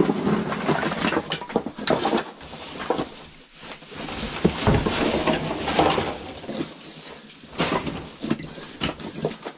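Firewood being handled and gathered into a bag: sticks knocking together and rustling in irregular bursts.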